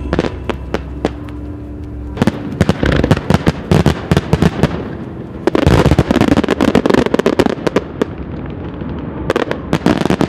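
Aerial firework shells bursting in quick succession with sharp bangs. About halfway through comes a dense barrage of rapid reports, and near the end another short flurry.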